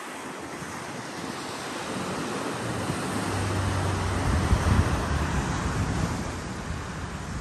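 Small waves washing onto a sandy beach, a steady surf hiss that slowly swells, with wind buffeting the microphone in low rumbles.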